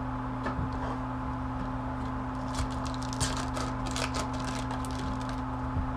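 Trading cards and a pack being handled by hand: a run of crisp rustles and clicks in the middle, over a steady low electrical hum.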